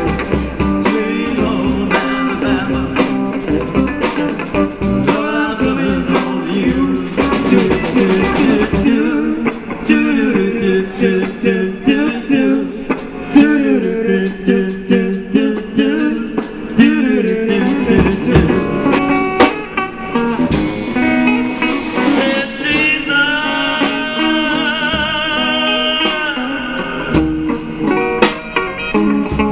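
A live pop-rock band plays an instrumental passage, with guitar over bass and a steady beat of percussive hits; a wavering melodic line rises above the band near the end.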